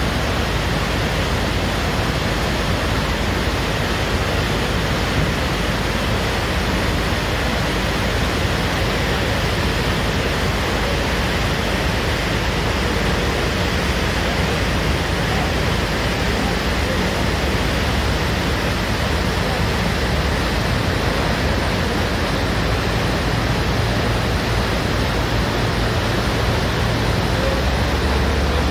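Floodwater in a swollen alpine river and on the street rushing by, a steady heavy roar of water with no let-up. A low machine hum comes in near the end.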